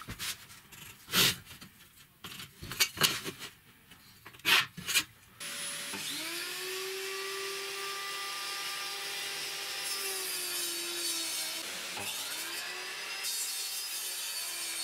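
Light taps and knocks of a pencil and steel ruler on a plywood sheet, then about five seconds in a table saw starts, its whine rising as the motor spins up, and runs steadily as the blade cuts plywood. The whine dips briefly about twelve seconds in and recovers.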